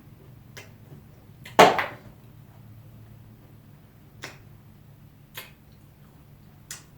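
Close-miked eating sounds: one loud bite or crunch about a second and a half in, then a few short sharp mouth clicks while chewing, over a faint low hum.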